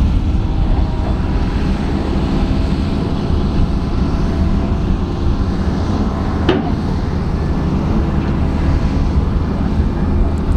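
Heavy diesel engine of a loaded dump truck running steadily as it drives slowly past, with a deep rumble. A single short click about six and a half seconds in.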